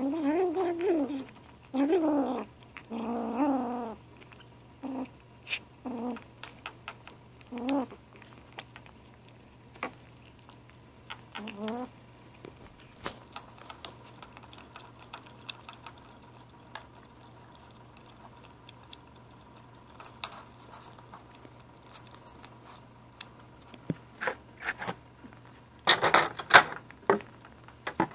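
Seven-week-old kitten making short growly 'talking' calls while eating, several in a row that waver up and down in pitch, then one more a little later. Between them come scattered small clicks and taps of eating at the food can, and a louder bump and rustle near the end.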